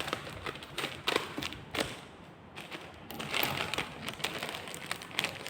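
Hands handling a boxed package: a scatter of light taps and knocks, with a stretch of rustling a little past the middle.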